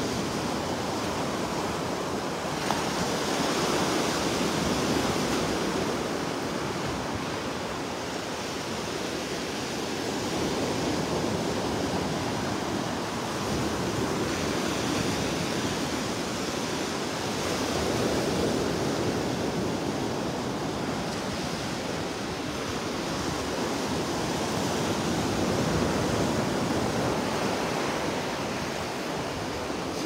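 Gulf of Mexico surf breaking and washing up the shore, a steady rush that swells and eases every few seconds, with some wind on the microphone.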